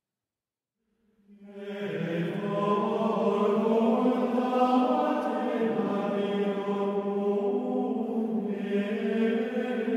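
Slow chant sung by a choir of men's voices, most likely the monks' own plainchant, starting about a second in out of silence and held on long, sustained notes.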